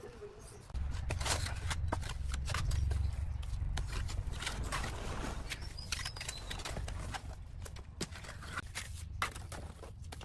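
Steel trowel scraping and slapping wet cement mortar onto a brick wall: a run of short scrapes and knocks, over a steady low rumble that starts about a second in.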